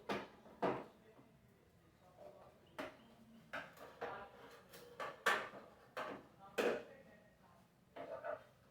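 Sharp clicks and knocks, about ten spread over several seconds, of vacuum cleaner parts being handled and taken apart by hand.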